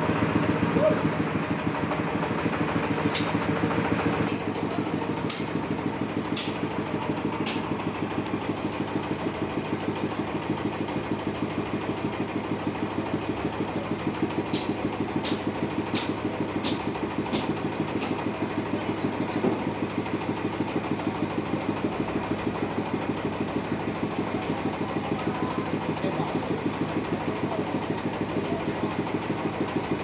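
Sawmill engine running at a steady idle, with an even pulsing note. Two runs of sharp taps sound over it, about one a second: five about three seconds in and six more midway.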